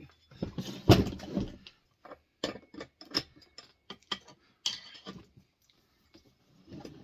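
Metal hand tools (a chainsaw clutch tool and a wrench) clicking and knocking as they are handled while the clutch is fitted, with a heavier knock about a second in.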